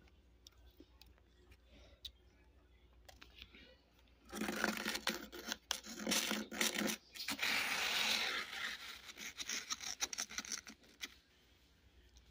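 Freezer frost being scraped and crunched: dense, crackly bursts starting about four seconds in, then a hissing scrape that fades out shortly before the end.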